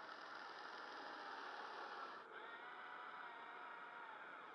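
Electric drive motors of a Huina 580 radio-controlled excavator whining faintly as the arm works a 3D-printed ripper through soil. The whine shifts in pitch about halfway through and bends down again near the end as the movement changes.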